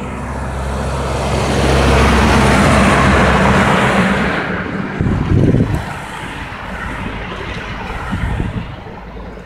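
A lorry passing close by on the road: engine hum and tyre rush swell to a loud peak about two to three seconds in, then fade away, with a short low rumble about five seconds in.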